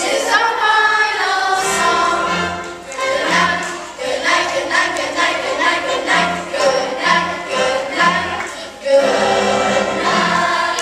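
Children's choir singing with an instrumental accompaniment, holding a long final note near the end.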